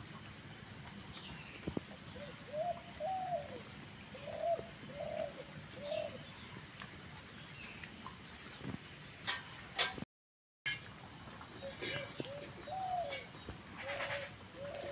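A dove cooing in phrases of short, repeated, arching hoots, one series a couple of seconds in and another in the last few seconds. There are a few brief scuffing noises, and the sound cuts out for half a second about ten seconds in.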